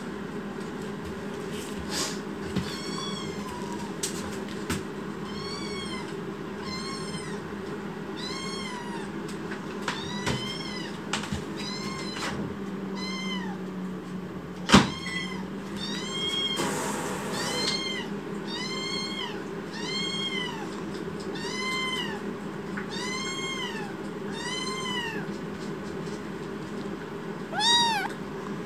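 A kitten meowing over and over, about one call a second, each call rising then falling in pitch: begging for its food. A sharp knock about halfway through, and a louder call near the end.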